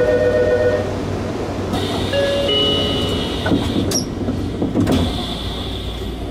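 Station departure bell ringing a steady electronic tone that cuts off about a second in, followed by short beeps and knocks as the Y000-series train's doors close before departure.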